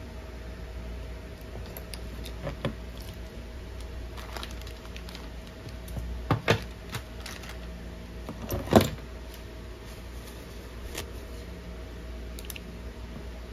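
Scattered light clicks and knocks of small objects being handled and set down on a workbench, with louder knocks about six and a half seconds in and again near nine seconds, over a faint steady hum.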